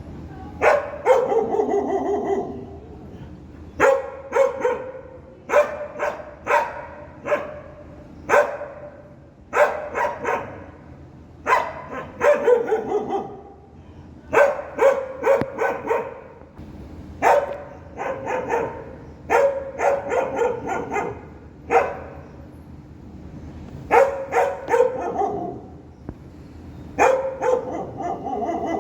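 A dog barking repeatedly, in quick runs of two to four barks, with a run every couple of seconds.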